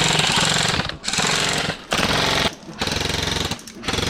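An airsoft rifle firing full-auto in several rapid bursts of about a second each, separated by short pauses.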